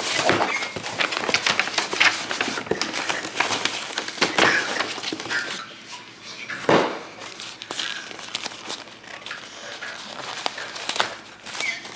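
Cardboard mailer box being opened and a drawstring cloth dust bag handled: irregular rustling, scraping and crinkling of cardboard and fabric, with a couple of louder scrapes midway.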